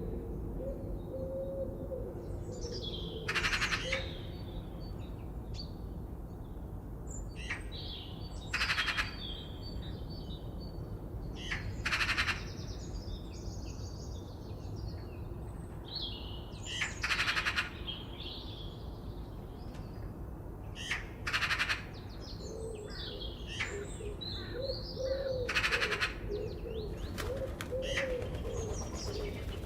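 Forest birds calling: a short harsh call repeats every four to five seconds over scattered high chirps, with a lower warbling call near the start and again late on, over a steady background hiss.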